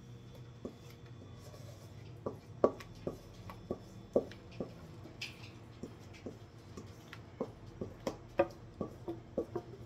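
Irregular light clicks and knocks of a utensil against a mixing bowl and pie dish as cherry pie filling is spooned into a baked pie crust, over a steady low hum.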